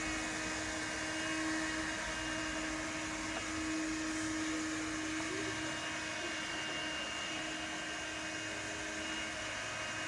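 Window-cleaning robot running on the glass: its suction fan gives a steady whirring hum with a constant whine as the robot drives up the pane.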